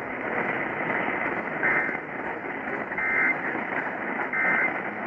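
Emergency Alert System end-of-message signal: three short bursts of warbling two-tone digital data, each about a third of a second long and about 1.4 seconds apart, over a steady hiss of radio static.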